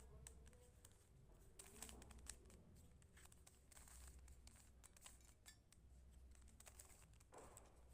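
Faint, irregular clicks and clacks of a Rubik's cube's plastic layers being twisted by hand, over near silence.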